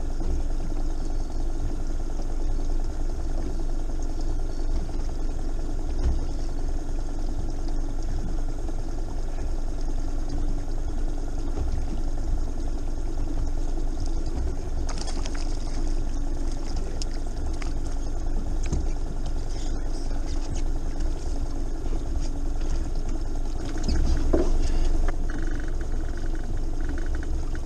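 Boat engine running steadily at low revs, a constant hum, with a few light clicks and knocks partway through.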